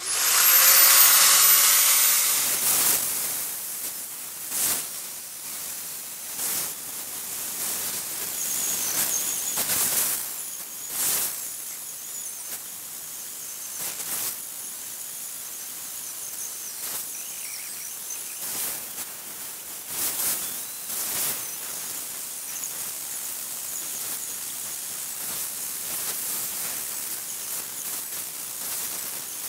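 Angle grinder with a 120-grit flap disc spinning up with a rising whine, then running steadily while the disc is brushed lightly over a painted stainless steel coffee mug, with short louder strokes every second or two as it takes the paint off. The grinder runs without much pressure on the work.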